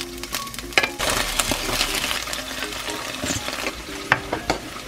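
Food sizzling in a hot frying pan, the hiss swelling about a second in and easing off after, with several sharp clicks and taps through it.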